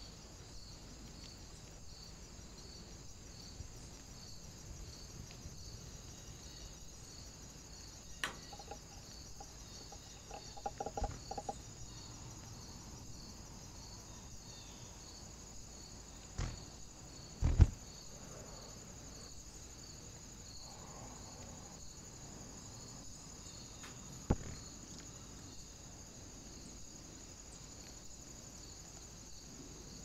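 Steady high, evenly pulsing insect chirring, like crickets, throughout. Over it come a few sharp knocks and taps, the loudest about halfway through, from a Eurasian jay pecking at and moving on a terracotta dish feeder.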